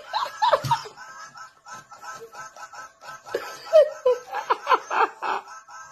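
A person laughing in short snickers and giggles, loudest in the second half, over a light repeating tune of quick chirps.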